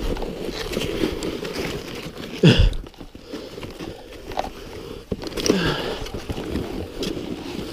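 Snowshoe steps crunching and shuffling through deep wet snow on a steep climb, with two short falling grunts or heavy breaths from the exertion, about two and a half seconds and five and a half seconds in.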